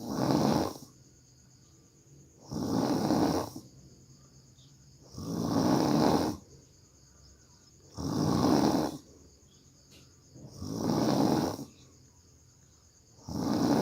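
A sleeping person snoring heavily: six loud snores, each about a second long, coming about every two and a half seconds.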